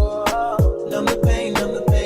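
Background music: a hip hop/Afrobeat-style track with a steady beat of deep, pitch-dropping kick drums and sharp snare or hi-hat hits, without vocals here.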